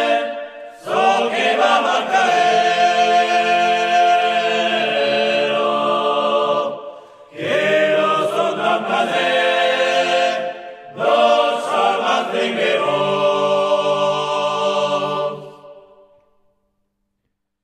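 Men's vocal group singing Pyrenean (Béarnais) polyphony a cappella in Gascon Occitan, several voices in close harmony. Three phrases, each ending on a long held chord over low sustained notes; the last chord fades out about sixteen seconds in, ending the song.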